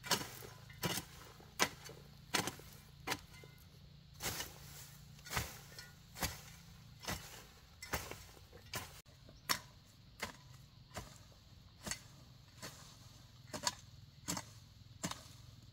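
Hoe blade chopping into weedy soil, a sharp strike about every three-quarters of a second in a steady working rhythm.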